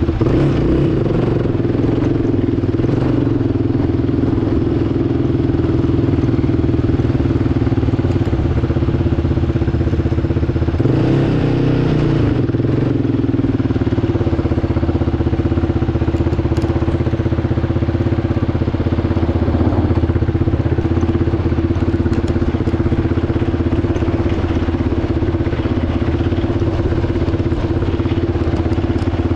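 Yamaha quad's engine running steadily under way, with one brief rev up and back down about eleven seconds in.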